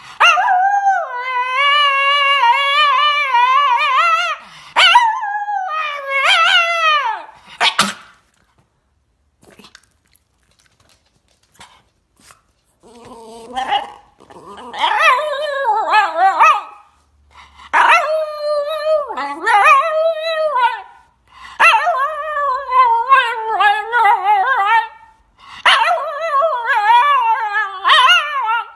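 Shiba Inu howling: a string of long, wavering calls, with a break of about five seconds partway through before the howling starts up again.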